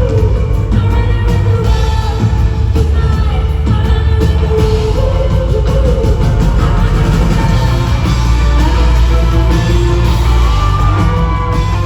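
Live concert music: a band playing loud pop-rock with heavy, steady bass while a woman sings.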